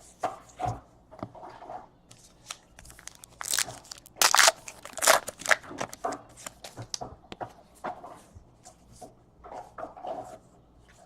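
Baseball cards and pack wrappers handled by hand: irregular rustling, crinkling and card slides. The loudest crinkling comes about four to five seconds in.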